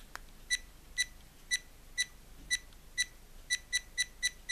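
AKASO EK7000 action camera's self-timer beeping through its photo countdown: short high beeps about two a second, quickening to about four a second near the end as the shot comes due. A button click at the very start.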